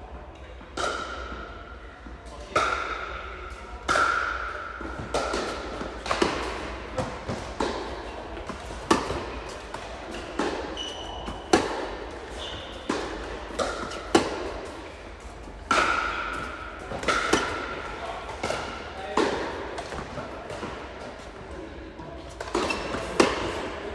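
Tennis rally: a ball struck back and forth with rackets and bouncing on the court, about one sharp hit every second or so, some hits leaving a brief ringing ping from the strings.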